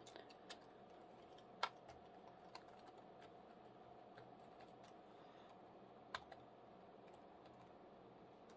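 Asus ROG Zephyrus G14 laptop keyboard being typed on slowly, giving sparse, faint soft key clicks. Two louder clicks, about one and a half seconds in and about six seconds in, stand out; the space bar is clickier than the other keys.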